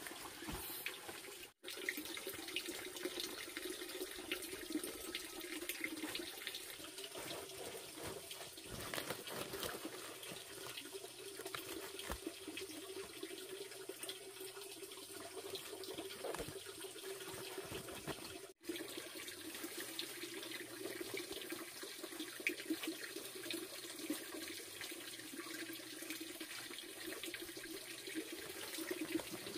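Water running steadily from a hose into a plastic basin, a continuous splashing that cuts out briefly twice.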